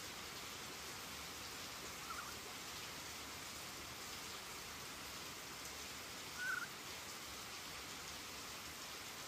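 Heavy rain falling, a steady hiss throughout. Two brief high squeaks cut through it, a faint one about two seconds in and a louder one past the middle.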